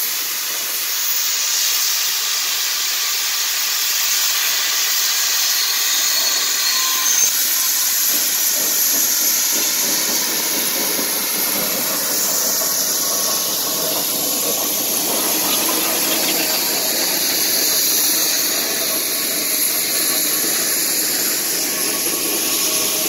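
Steady hissing of steam venting from geared steam locomotives, with no clear exhaust beat.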